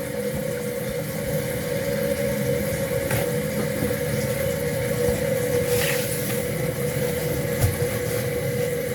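Toilet fill valve running as the tank refills, a steady hum over the hiss of water, with a few faint knocks.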